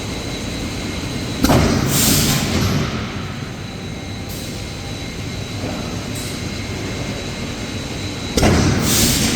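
Machinery of an aluminum forging line running steadily, with a thin high whine, broken twice, about seven seconds apart, by a loud sudden knock followed by a hiss of about a second and a half.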